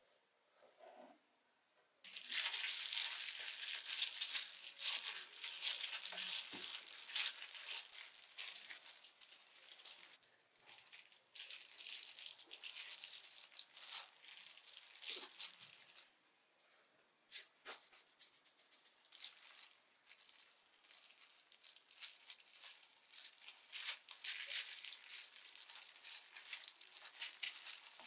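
Thin plastic food-prep gloves crinkling and rustling as hands spread rice and press fillings onto a bamboo rolling mat, with small clicks from the mat. The crinkling is densest for several seconds near the start, thins out with short pauses, and picks up again near the end.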